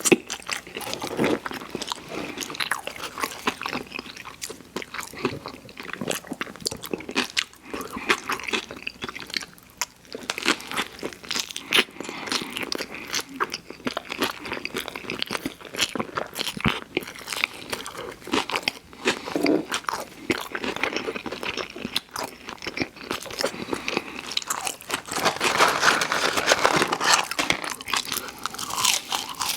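Close-miked eating: repeated crisp bites and crunchy chewing of fast food, an irregular run of crackling crunches that gets denser and louder near the end.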